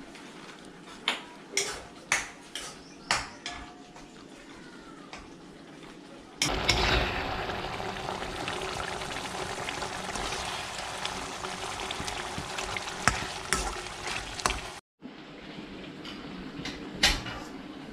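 A spoon clicking against a cooking pan a few times, then a sudden loud sizzle of frying in the pan that lasts about eight seconds, with the spoon tapping now and then as the masala and mutton are stirred.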